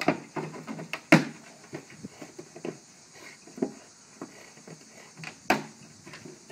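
Plastic 5-gallon water bottle knocked, bitten and shoved about by a Rottweiler: irregular knocks and scuffs, the loudest about a second in and again near the end.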